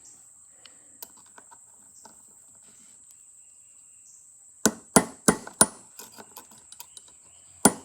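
Hammer striking a metal punch to drive a part out of a Victor M phonograph governor: four sharp metallic strikes in quick succession about halfway through, then two more near the end, after faint handling clicks.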